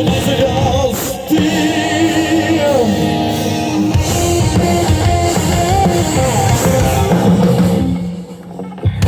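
Live rock band playing, with drums, guitars and vocals. Near the end the music briefly drops away, then comes back in.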